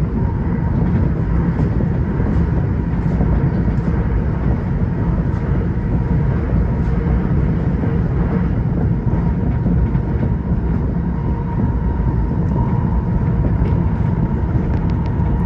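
Tokyo Metro 05 series electric train running at speed: a steady rumble of wheels on rail, with a faint steady whine on top and a few light ticks.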